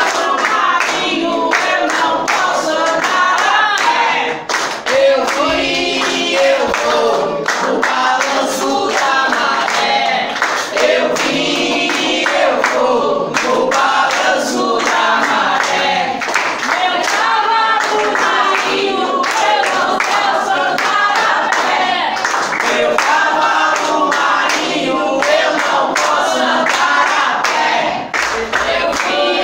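A group of voices singing an Umbanda ponto cantado for the Marinheiros (sailor spirits) in Portuguese, with hand clapping keeping the beat throughout.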